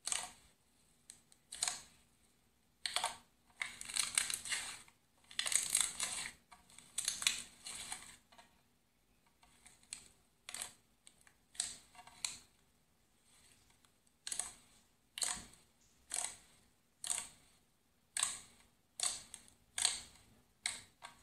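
Fluffy slime squished and stretched by hand, giving short bursts of crackling and popping from trapped air, about one a second.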